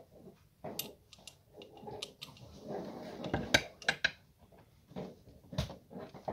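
Metal clicks, knocks and scraping as a new gas strut is handled and fitted onto a steel ottoman bed lift mechanism, with the sharpest clicks about three and a half seconds in and again near the end.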